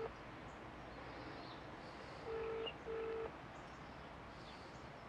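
British telephone ringing tone on a transferred call that is ringing out unanswered: one double ring, two short beeps, about two seconds in, just after the end of the previous double ring at the very start.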